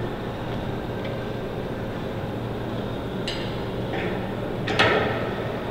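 A hand tool working a bolt on a steel jig frame: a few light metallic clicks, then one louder metal clank near the end, over a steady low hum.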